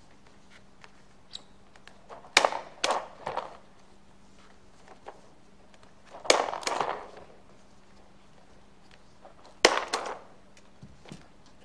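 Handheld stapler clacking shut through two stacked paper plates, sharp snaps in three short groups a few seconds apart.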